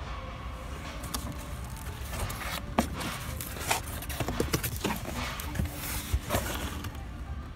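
Cardboard shipping case being opened by hand, its flaps pulled back: a string of irregular sharp knocks, taps and scrapes from about two seconds in, over a steady low store hum.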